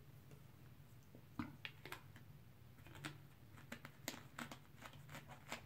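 Faint scattered clicks and ticks from a plastic drink bottle being handled and its screw cap twisted, over a quiet room hum.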